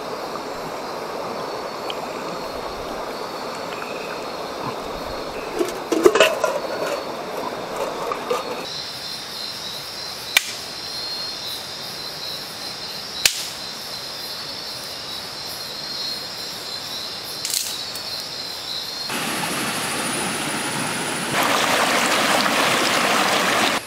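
Shallow river water running, with a short burst of splashing about six seconds in. Then a steady high drone of rainforest night insects with a few sharp campfire pops. Then the rush of a rocky forest stream, stepping louder for the last couple of seconds.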